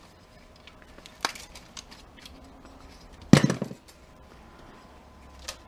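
Light clicks of tools and parts being handled, then about three seconds in a single loud knock as a cordless drill is set down on the workbench.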